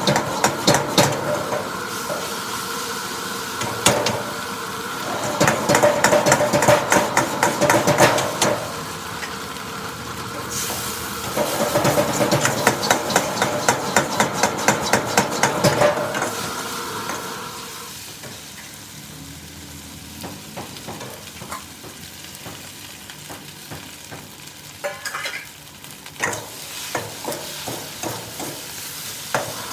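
Metal spatula scraping and clacking rapidly against a wok as flat rice noodles are stir-fried, over a steady sizzle. After about two-thirds of the way through the scraping stops and only a quieter sizzle remains, with a few clanks near the end.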